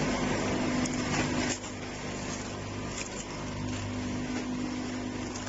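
Machinery running steadily with a low hum and a constant noisy whir, dropping a little in loudness about one and a half seconds in.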